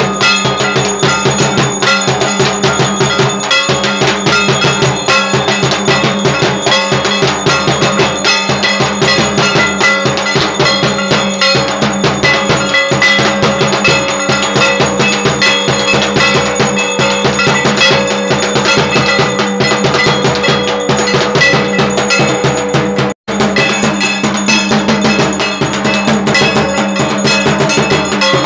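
Bells and bell-metal gongs struck rapidly and without pause, with drumming, for the evening aarti of Durga Puja. The loud, dense clanging drops out for an instant about 23 seconds in.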